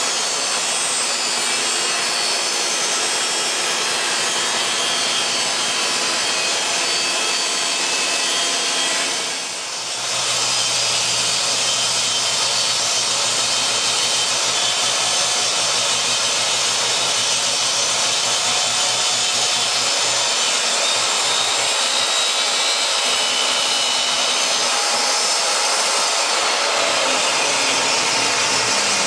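DeWalt jobsite table saw running and ripping a long 2x10 board lengthwise. The sound is steady and loud, with a brief dip about nine seconds in.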